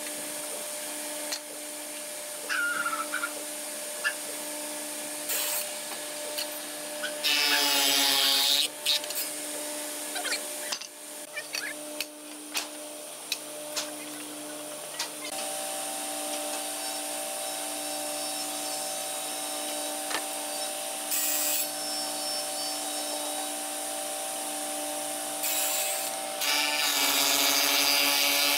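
A woodworking machine running steadily with a hum, cutting into hardwood twice: once about a third of the way in, where the pitch drops under load, and again near the end. Scattered knocks of boards being handled come in between.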